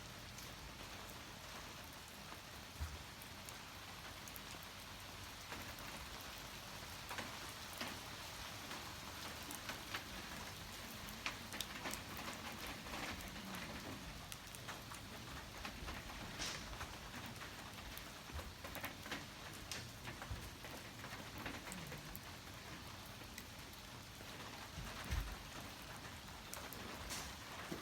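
Campfire burning: a steady hiss with scattered sharp crackles and occasional louder pops.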